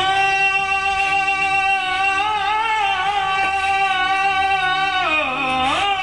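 Music: one long held sung note over a steady low drone, wavering slightly, then dipping and rising again near the end.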